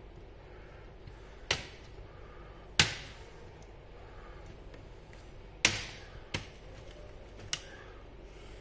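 Plastic casing of an HP G6 laptop knocking and clicking as it is handled and tipped onto its side: five sharp knocks, the loudest about three seconds in.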